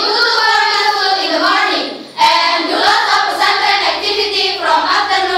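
A group of teenage schoolgirls singing together in unison without accompaniment: two held phrases with a short breath between them about two seconds in.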